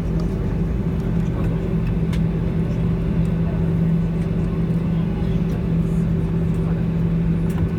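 Steady low hum of a Boeing 737-800 heard inside the cabin as the airliner taxis after landing, its engines at idle.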